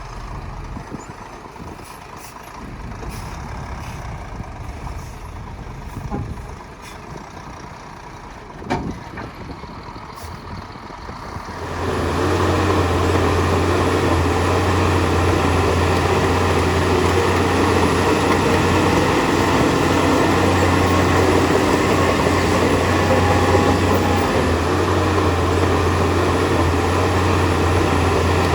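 Heavy diesel engine of earthmoving machinery running, with a few sharp knocks. About twelve seconds in it suddenly becomes much louder and then holds steady with a deep hum.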